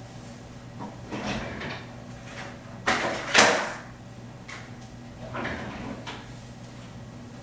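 Household handling noises: shuffling, then two sharp knocks close together about three seconds in, like a door or drawer being shut, and softer handling later, over a low steady hum.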